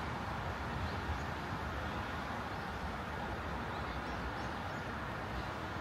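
Steady outdoor background noise: an even low rumble, with a few faint, short high-pitched calls now and then.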